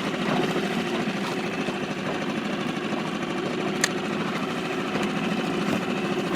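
Small Seatan outboard motor running steadily, pushing an inflatable dinghy along.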